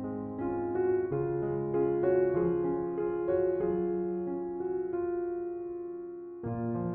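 Background music: a soft electric piano playing chords and a melody, with a fresh chord struck near the end.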